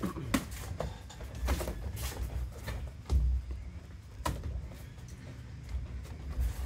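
Sparring in a boxing ring: irregular sharp glove smacks and low thumps of feet on the ring canvas, with a heavier thump about three seconds in.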